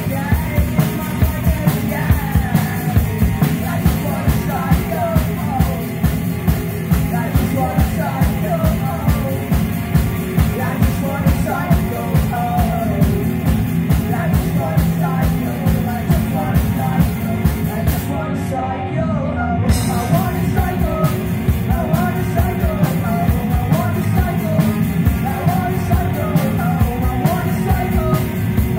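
Live two-piece rock band playing: a singer on electric guitar with a drummer, sung vocals over a steady drum beat.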